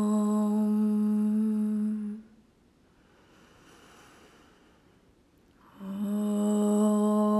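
A voice humming one steady low note. It breaks off about two seconds in for a quiet pause with a faint breath, then the same note starts again near the end.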